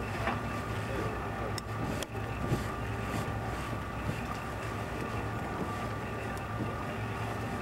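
Steady low drone of a ship's engine and machinery, with a couple of faint clicks about one and a half to two seconds in.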